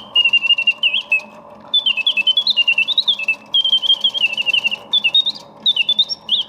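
Mechanical singing bird of a vintage German singing bird alarm clock going off: high whistled chirps and rapid trills broken by short pauses, over a steady whirr from the mechanism.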